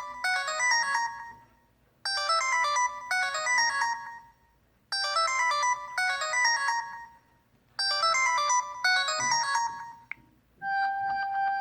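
LG Prada 3.0 phone ringtone: a short, bright cascade of quick high notes that repeats roughly every three seconds. Near the end a different ringtone starts with a steady held tone.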